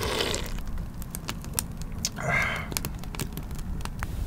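Wood fire crackling and popping in a small metal fire box, sharp snaps scattered throughout. Twice a short breathy sound from the person close by, the louder one about two seconds in.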